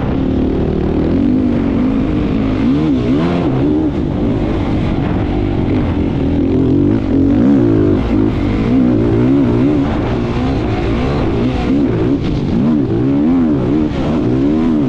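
Racing vehicle engines revving hard, their pitch rising and falling again and again, about once a second, as the throttle is worked on and off.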